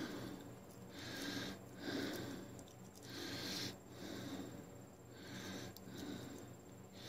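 Close, audible breathing, in and out about every two seconds (three breaths), over a steady low hum.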